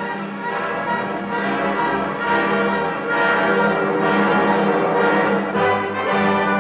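Opera orchestra playing a sustained passage of held chords, with brass to the fore, swelling in loudness about two seconds in.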